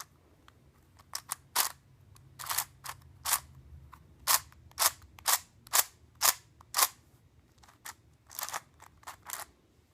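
Plastic Mix-Up Cube twisty puzzle being turned by hand: its layers and center slices clack as each turn snaps into place. There are about fifteen sharp clacks, evenly paced at about two a second in the middle, with a longer rasping turn near the end.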